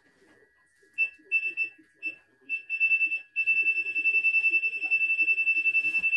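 Portable embroidery machine's electronic buzzer beeping at one high pitch: a few short beeps, then one long beep of about three seconds.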